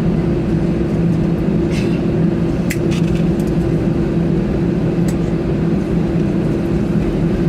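Airbus A321 cabin noise: the jet engines hum steadily at low power, heard from inside the cabin. A few light clicks or rattles come about two, three and five seconds in.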